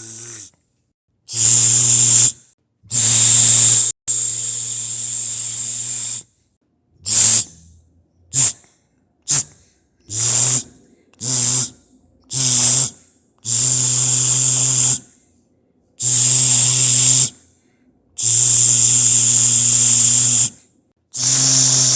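A person's voice imitating electric zaps and shocks: about a dozen separate buzzing, hissing bursts made with the mouth and throat, the ones in the middle short and quick, the ones near the end held for one to two and a half seconds.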